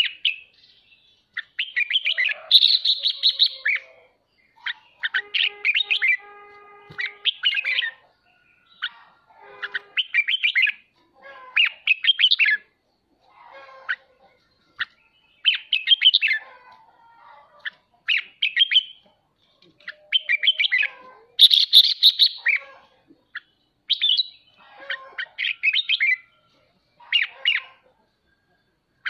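Red-whiskered bulbul singing its 'ché' song: about a dozen short bursts of rapid, chattering chirps, each a second or two long, with brief pauses between.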